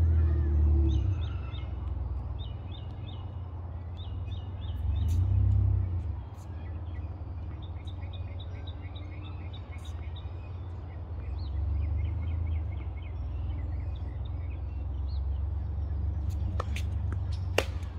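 Birds chirping in quick repeated series over a steady low rumble of distant traffic or wind, with two sharp knocks near the end.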